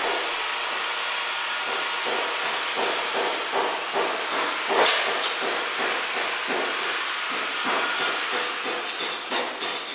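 A steady rushing hiss, with scattered light clicks and knocks, the loudest about five seconds in.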